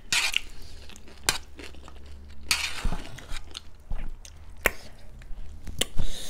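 Mouths chewing and biting spicy buff chowmein noodles, with scattered sharp mouth clicks and short wet bursts.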